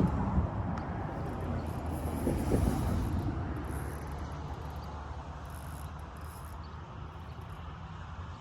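Steady low rumble of outdoor background noise, a little louder in the first three seconds.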